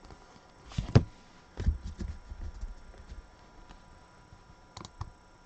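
Trading cards and packs being handled on a table: a sharp tap about a second in, a short run of soft low thumps, then a couple of light clicks near the end.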